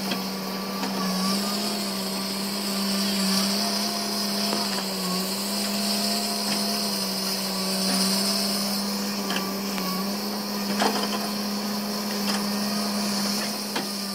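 A motor running steadily with a constant hum and a high hissing whine, with a few faint clicks near the end.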